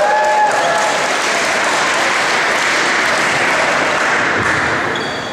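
Crowd in a school gymnasium applauding at the end of a sung national anthem. The singer's last held note dies away in the first half-second, and the applause thins out near the end.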